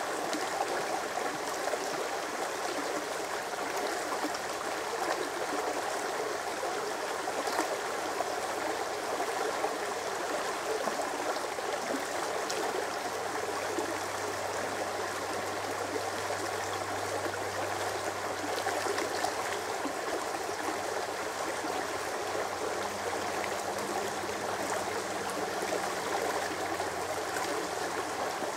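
Shallow, rocky brook rushing and babbling steadily over stones. A faint low drone sits underneath from about a third of the way in until near the end.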